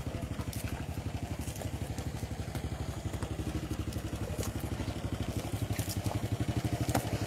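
A small engine idling with a steady rapid chug, about eight or nine beats a second, with faint scattered clicks and crackles over it.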